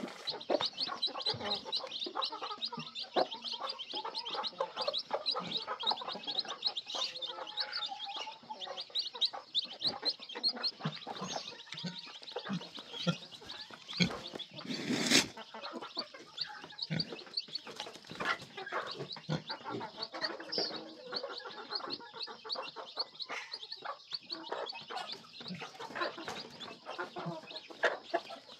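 Chickens clucking while roosters spar, over a fast, steady high chirping. A loud flurry of wing-flapping comes about fifteen seconds in.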